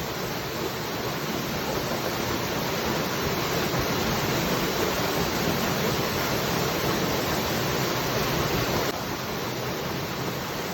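Waterfall: a steady, full rush of falling water. Its level drops suddenly about nine seconds in, then carries on steadily.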